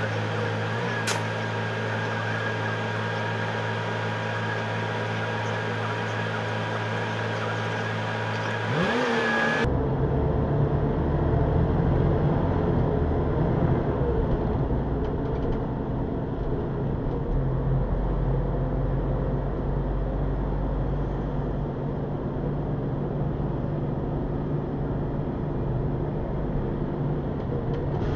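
Bus engine running steadily, with a brief rise in pitch about nine seconds in. An abrupt cut then brings a louder, deeper running sound as the bus drives on.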